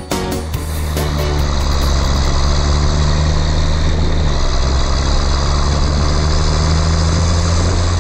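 Diesel tractor engine running steadily, with faint background music.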